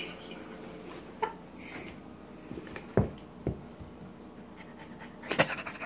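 Small dog playing with a plush toy: a few scattered soft knocks and rustles, the loudest cluster about five seconds in.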